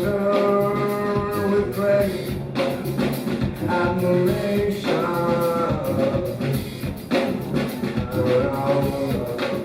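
Live rock band playing, with drums and cymbals keeping a steady beat under several held, sung phrases.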